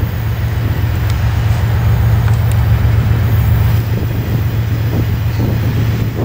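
Diesel freight locomotives of an approaching train running, a loud, steady low drone.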